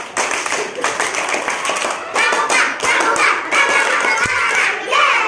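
Several children clapping their hands, many quick uneven claps, with music over them.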